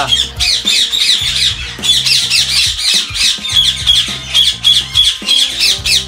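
Indian ringneck parakeets squawking, many short shrill calls overlapping in quick succession, several a second.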